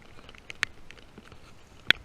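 A few isolated sharp cracks against a faint background: two close together about half a second in, and a louder single one near the end.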